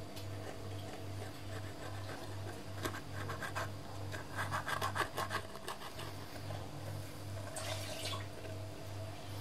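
Small clicks, taps and rubbing from handling a glue bottle and a phone frame on a tabletop, with a quick flurry of taps about four to five seconds in and a short hiss near the end. Under it a steady low hum pulses about three times a second.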